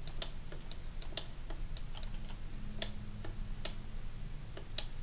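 Light, irregular clicks of a computer mouse and keyboard, a few a second, over a low steady hum.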